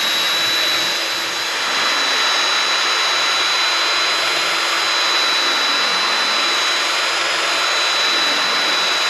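DeWalt cordless drill spinning a small wire brush inside the bore of a side-by-side's bearing carrier, scrubbing the metal clean. A steady high whine over scratchy brushing noise, stopping near the end.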